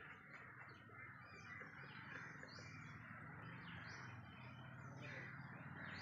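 A quiet, busy chorus of many birds calling over one another from a nesting colony: short falling chirps and harsher caws, with a low steady hum underneath.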